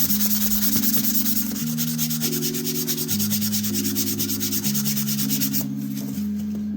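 Sandpaper rubbed by hand along a steel pocket-knife blade in quick, even back-and-forth strokes, stopping near the end, over background music of steady chords.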